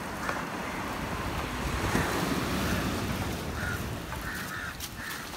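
Steady rushing noise of surf and wind, with wind buffeting the microphone.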